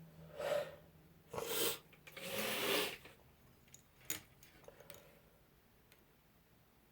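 A woman's nose and breath, sniffly from a sneezing fit: three noisy nasal breaths about a second apart, the third the longest. A sharp click and a few faint ticks follow.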